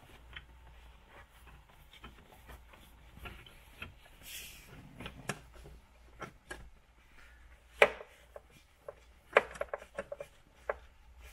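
Irregular metallic clicks and taps of a socket wrench working the brake master cylinder's mounting nut loose, with a sharper knock about 8 s in and a quick run of clicks near the end.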